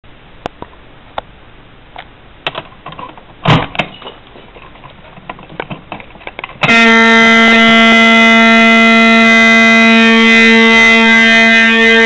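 A few clicks and a sharp knock as the Simplex pull station is handled, then, just under seven seconds in, the handle is pulled down and a Simplex 4051 fire alarm horn starts sounding one loud, steady, continuous tone.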